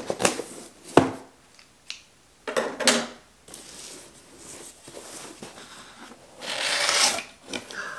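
A cardboard shipping box being cut open and handled on a wooden table: short clicks and rustles of cardboard and tape, a sharp knock about a second in, and a longer scraping rustle near the end as the inner box is pulled out.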